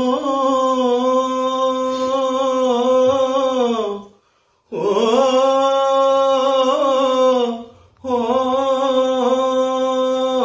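A young man singing unaccompanied, holding three long steady notes in a Punjabi rubai recitation, each note sliding down a little at its end. He breaks for breath about four seconds in and again briefly about eight seconds in.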